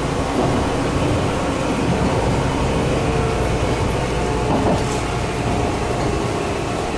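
Meitetsu 6000 series electric train running, heard from inside the front car: a steady rumble of wheels and running gear with a faint whine that comes and goes.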